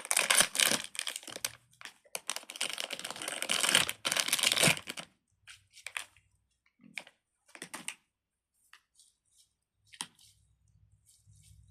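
Plastic crinkling and rustling as fidget toys are handled, dense for about five seconds, then a few scattered light clicks and taps.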